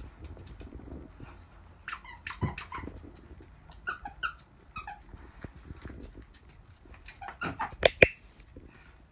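Rubber squeaky dog toys squeaking several times, short and high, as a beauceron picks them up in its mouth. The loudest squeaks come near the end together with a sharp knock as a toy goes into a plastic bin.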